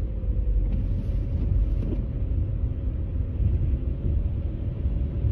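Car driving at low speed, heard from inside the cabin: a steady low rumble of engine and tyres with a faint steady hum over it.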